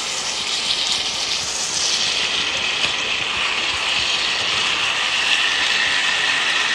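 Chicken wings sizzling in a frying pan of soy sauce and honey glaze that is reducing and thickening: a steady frying hiss.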